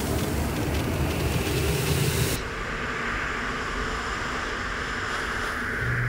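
Steady rushing air, the airflow of an air purifier's fan. Its bright hiss drops away about two and a half seconds in and it continues as a duller rush.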